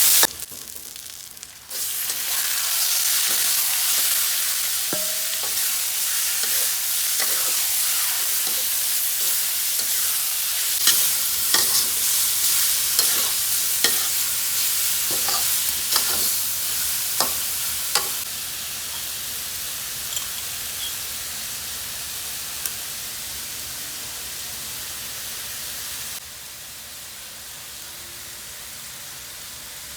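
Minced chicken sizzling in a pan as it is stir-fried, with a spatula knocking against the pan now and then. The sizzle starts after a short lull, then steps down in level a little past halfway and again near the end.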